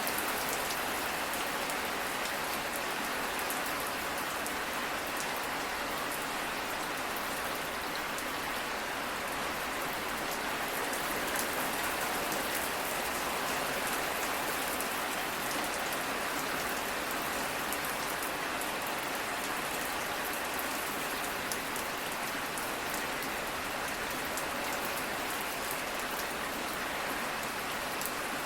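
Steady rain falling on a surface: an even hiss with many fine drop ticks.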